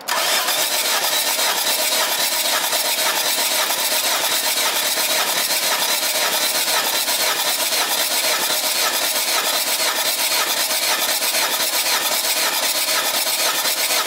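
Mitsubishi Triton's 4D56U 2.5-litre turbo diesel being turned over on its starter motor with the injectors out, for a compression test on cylinder two. The cranking starts abruptly and runs steady and even without firing.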